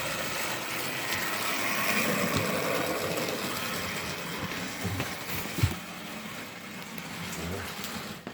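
Model railway locomotive running round the track, its small motor whirring and the wheels rattling and crunching over the rails, the oversized wheel flanges still rough though partly ground down. A single sharp knock about five and a half seconds in.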